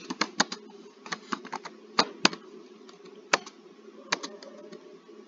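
Computer keyboard keys clicking as someone types, in an irregular run of keystrokes with short pauses, over a steady low background hum.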